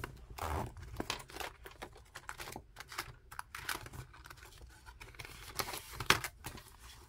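Clear plastic pages of a zippered cash binder and paper banknotes being handled, rustling and crinkling, with scattered light clicks and taps.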